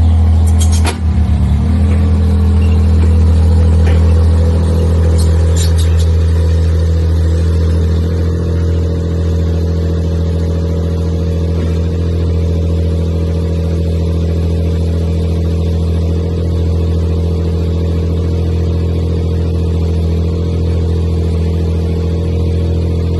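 Mini skid steer mixer dumper's engine running steadily with a low drone. The level dips briefly about a second in, and a few sharp clicks sound near the start and again around five seconds in.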